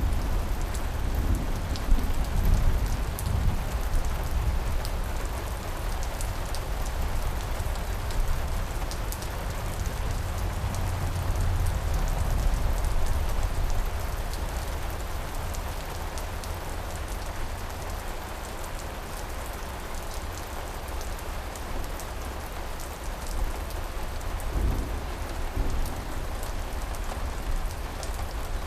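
Steady rain falling, with the patter of individual drops over a low rumble of distant thunder that swells near the start and again around the middle.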